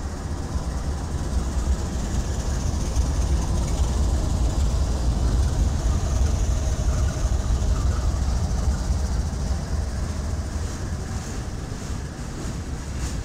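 CSX diesel freight locomotives passing close by with a deep, steady engine rumble. It grows to its loudest midway as the units go past and eases off a little near the end.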